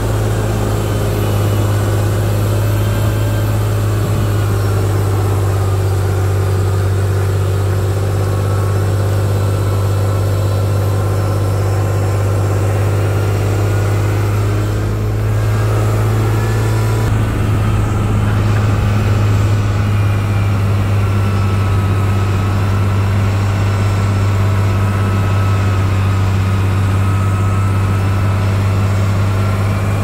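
Heavy diesel engine of earthmoving machinery running steadily, its pitch drifting slightly up and down, with a brief slight dip in level about halfway through.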